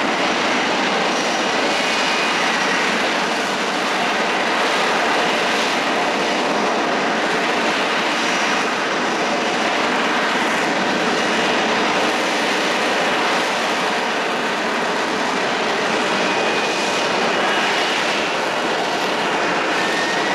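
F-35B Lightning II's F135 turbofan jet engine running as a loud, steady wash of jet noise that holds level throughout, with faint high whines coming and going.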